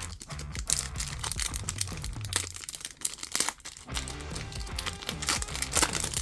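Foil Pokémon trading-card booster pack wrapper crinkling and crackling as it is torn open and handled, over background music.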